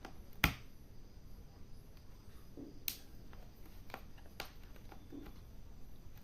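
Sharp plastic clicks as the snap clips of a laptop's bottom case pop loose while it is pried open with a plastic card. The loudest is about half a second in, followed by a few fainter ones.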